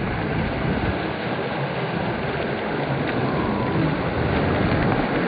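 Steady beach ambience: sea surf washing in with wind rumbling on the microphone.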